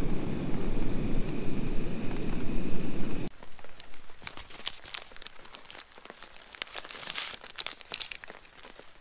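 An MSR gas canister stove burning steadily under a pot, a loud low rush that stops abruptly about three seconds in. Then a tea-bag sachet crinkles and tears as it is opened, in a run of crisp crackles.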